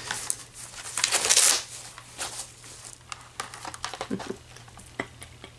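Clear plastic bag crinkling in irregular bursts as it is handled, with a few light clicks; loudest about a second in.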